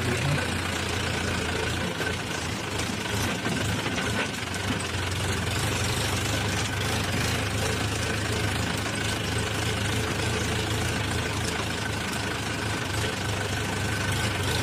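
Mahindra Yuvo 575 tractor's four-cylinder diesel engine running steadily as the tractor drives along, pulling an overloaded trolley of soil.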